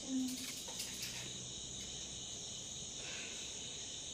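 Crickets chirring steadily in the background, with a few faint knife cuts through cabbage in the first second.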